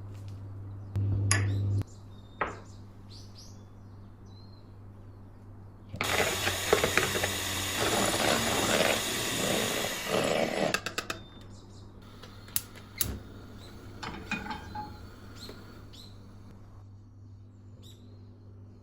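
Household handling noises: light clicks and knocks over a low steady hum, with about five seconds of loud rushing noise in the middle that ends in a quick run of ticks.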